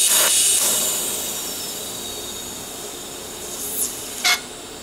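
TIG welding torch striking an arc to tack stainless sanitary tubing: a sudden loud hiss that eases off over a few seconds, then a sharp click near the end.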